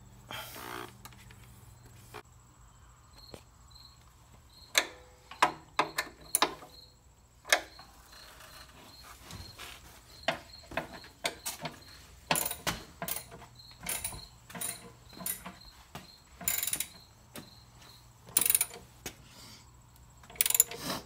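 Hand work on a motorcycle's bodywork and fittings: irregular knocks, clicks and rattles of tools and parts being handled, with a few short scrapes. Through the first part a faint high chirp repeats about twice a second.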